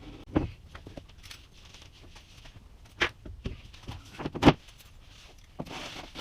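A few scattered clinks and knocks, like tools or hardware being handled, the loudest about four and a half seconds in, with a brief rustle near the end.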